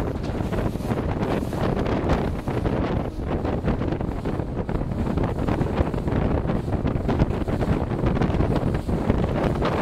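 Heavy wind buffeting the microphone of a small open boat under way at sea, over the steady rush of water and the boat's running noise.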